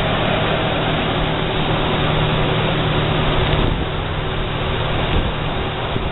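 Steady, loud engine roar with a low steady hum underneath, easing slightly a little over halfway through.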